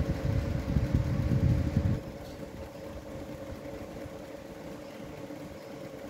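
Electric box fan running, its motor and blades giving a steady hum. A loud low rumble sits under it for about the first two seconds, then drops away, leaving the hum alone.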